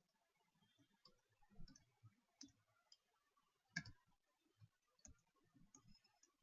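Near silence, with a few faint, scattered clicks; the loudest comes a little under four seconds in.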